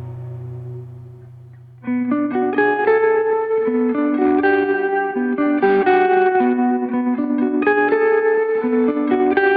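Background music: a fading low ambient tone, then about two seconds in a plucked electric guitar comes in with a fast repeating pattern of notes.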